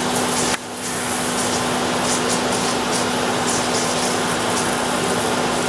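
Steady rushing hiss of a fire hose's water fog spraying onto a burning propane grill tank, mixed with the tank's jet of flame from a failed pressure relief valve. A steady low hum runs underneath.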